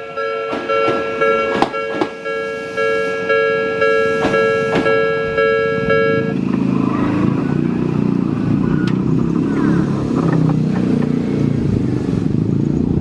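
Odakyu 1000-series train wheels clacking over rail joints at a level crossing while the crossing's electronic alarm bell rings steadily. About six seconds in the bell stops, and road vehicles start moving across the crossing.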